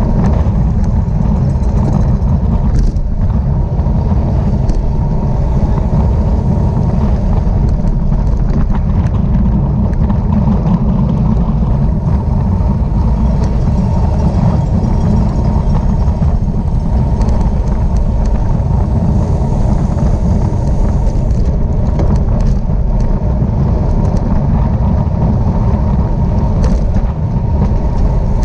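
Steady, loud rumble of wind buffeting the microphone, as on a camera moving at racing speed on a bicycle.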